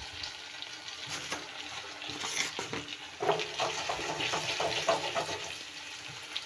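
Potatoes frying in oil with cumin seeds, a steady sizzle, with a spatula stirring and scraping in the pan in a run of short strokes from about three seconds in.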